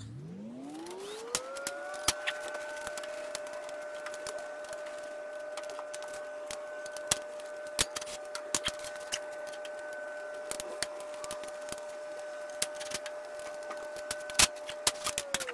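A power tool's electric motor spins up to a steady whine, runs for about thirteen seconds, and winds down near the end, with scattered metallic clicks and knocks.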